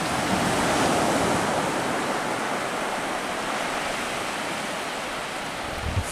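Surf on the shore: a steady rush of breaking waves that swells about a second in and then slowly fades.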